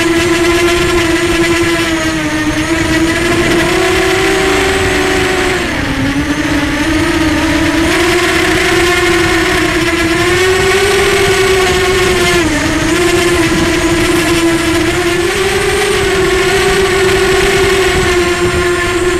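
Electric motors and propellers of a multirotor drone, heard from its onboard camera, whining steadily with the pitch wavering as the throttle changes and dipping briefly twice, about six and twelve seconds in.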